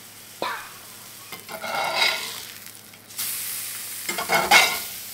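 Bass fillets sizzling in butter in a cast iron skillet while a spatula scrapes the pan and turns them, with a single knock early on. The sizzle grows louder and brighter about three seconds in.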